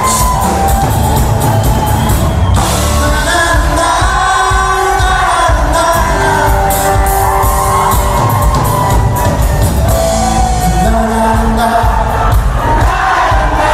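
Loud pop music with a singing voice over constant heavy bass, with crowd shouts and cheers mixed in.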